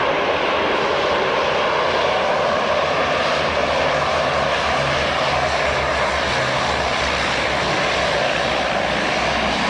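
Canadair amphibious firefighting water bomber's propeller engines running, a steady drone.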